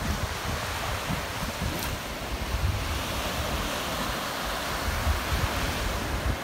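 Small choppy waves breaking on a sandy beach, with wind gusting on the microphone.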